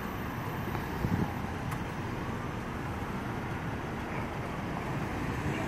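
Steady city street traffic noise with a brief low thump about a second in.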